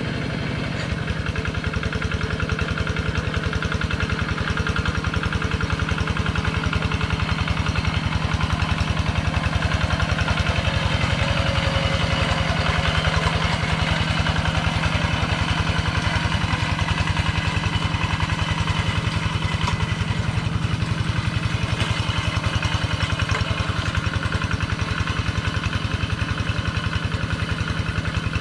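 Kubota two-wheel hand tractor's single-cylinder diesel engine running steadily under load while plowing a flooded rice paddy, with a fast, even chugging that grows a little louder about a second in.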